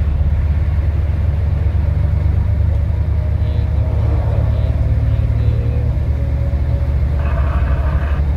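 Steady low rumble of a truck's engine and running gear, heard from inside the cab while driving, with a brief higher-pitched noise near the end.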